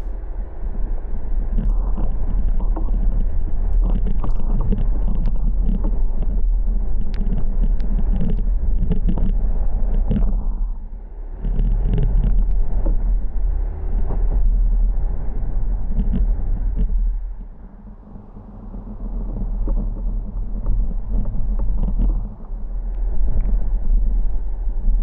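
Subaru driving through deep snow on fabric tire snow socks: a steady engine and drivetrain rumble with crunching and scraping of snow under the car, as the loaded car's back end drags over the icy ridge in the middle of the road. It eases off briefly about eleven seconds in and again near eighteen seconds.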